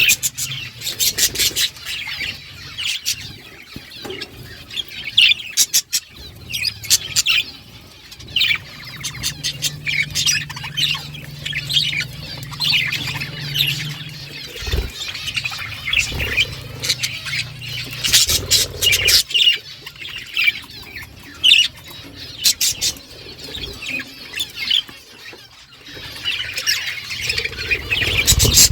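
A flock of budgerigars chirping and chattering continuously, many birds calling over one another, with bursts of quick clicks at times. A steady low hum sits under the birds for several seconds in the middle.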